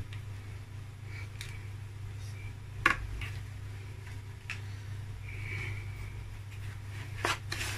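A metal spoon and a plastic mixing bowl being handled: a few light clicks and knocks, the sharpest about three seconds in, over a steady low hum.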